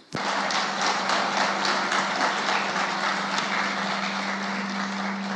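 Steady applause from many people clapping in a hall, over a steady low hum.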